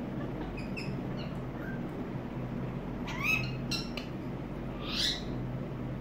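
Pet Alexandrine and Indian ringneck parakeets calling: a few short high chirps in the first second, then a loud squawk about three seconds in with a shorter one just after, and another rising squawk about five seconds in.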